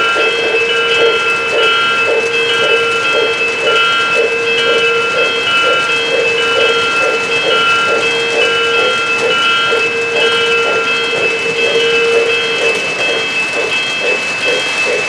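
O-gauge model freight train running past, its electronic sound system giving a steady hum with a regular beat of about two to three pulses a second. Over it comes a repeating high electronic ringing in short on-off dashes, which stops near the end while the beat carries on.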